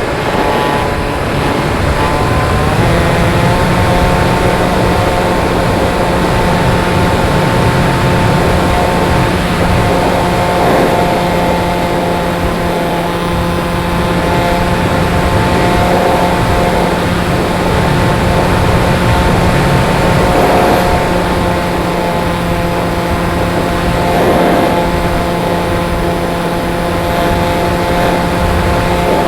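Pusher motor and propeller of a radio-controlled glider running at steady throttle, heard from onboard: a steady whine over a heavy rush of air. The whine steps up in pitch about three seconds in and then holds.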